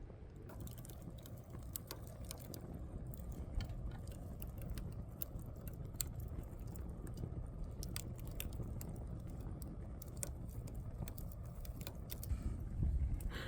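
Wood campfire burning with a steady low rush and irregular sharp crackles and pops.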